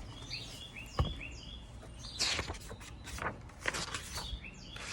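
Small birds chirping in short, repeated calls, with a few sharp knocks and a brief rustle in between.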